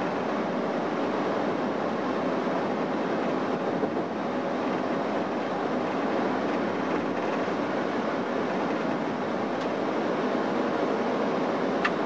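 Steady road noise inside a vehicle cabin at highway speed: an even rush of tyres, wind and engine with no change in level.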